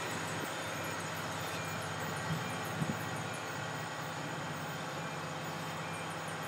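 GBRF Class 66 diesel locomotive's EMD two-stroke V12 engine running at low power as it reverses slowly away, a steady low hum.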